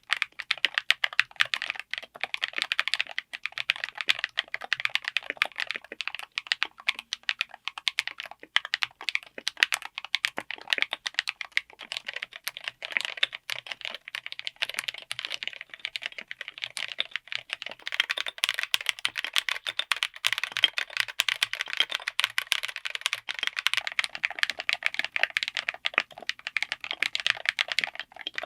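Continuous fast typing on a mechanical keyboard with linear switches, a dense stream of keystroke clacks. About two-thirds of the way through the sound turns brighter and higher, as a different switch takes over.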